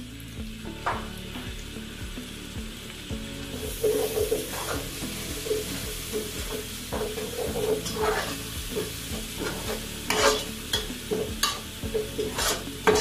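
A spoon stirring ground-beef sauce frying in an aluminium pot, the sizzling growing louder about four seconds in. There are repeated scraping strokes and a few sharper scrapes of the spoon against the pot.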